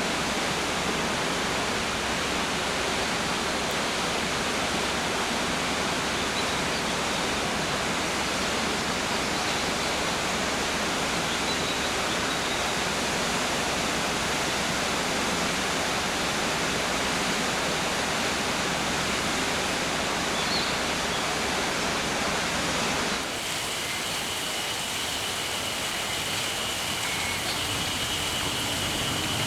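Mountain stream rushing steadily, with a few faint, brief bird chirps over it. About three quarters of the way through the rush turns slightly quieter and thinner, and a steady high-pitched trill runs over it to the end.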